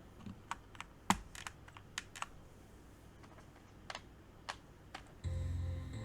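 Keys of a mechanical keyboard with brown switches clacking as they are pressed in an irregular, scattered run of single clicks. Background music comes in near the end.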